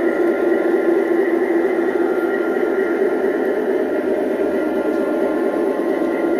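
Steady rolling rumble of G-scale model intermodal well cars running along the track, the noise of many plastic-bodied cars' wheels on the rails.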